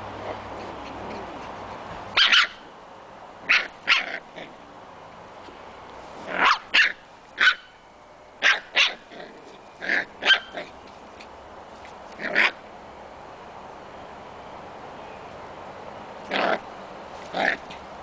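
Six-week-old Scottish terrier puppies yapping: about a dozen short, high-pitched barks in irregular clusters with pauses between them.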